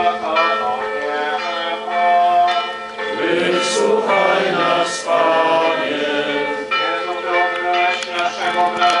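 Church bells ringing with people singing a hymn over them: a continuous, loud stack of sustained tones.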